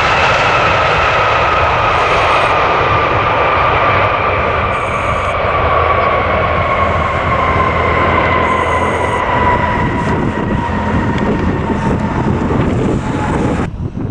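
Twin GE90-115B turbofans of a Boeing 777-300ER roaring loudly on the landing rollout. A whine in the roar falls slowly in pitch as the engines spool down. The sound cuts off suddenly near the end.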